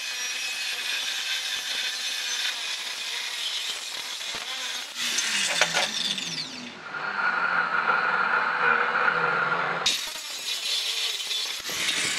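Angle grinder with a cut-off disc cutting through a steel channel, a loud harsh grinding. Partway through, the sound changes to a steadier, narrower whine for a few seconds, then the grinding starts again abruptly, with a few sharp metal clanks near the end.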